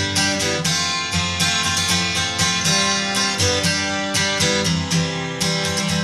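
Background music with quick, evenly spaced notes and a steady pulse.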